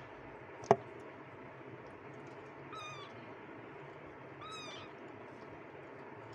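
Young kittens mewing: two short, high-pitched mews, about three and four and a half seconds in. A single sharp knock, the loudest sound, comes under a second in.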